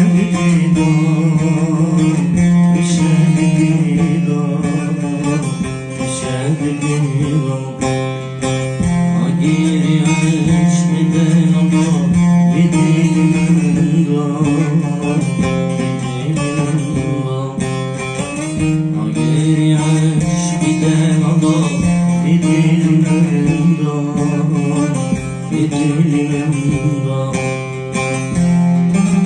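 Music: a plucked string instrument playing a fast melody over a steady low drone.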